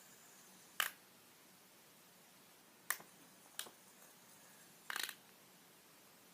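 A plastic fidget spinner being forced apart by hand: four short, sharp plastic clicks, the last a quick cluster about five seconds in, as its body cracks.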